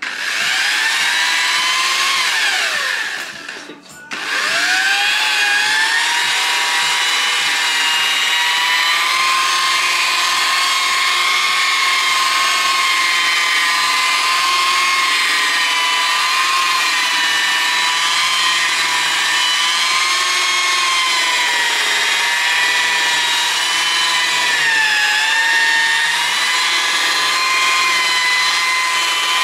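Corded machine polisher with a fluffy pad polishing a plastic headlight lens with cutting compound. The motor whine starts, sags in pitch and cuts out about four seconds in, then spins back up and runs steadily, its pitch wavering slightly.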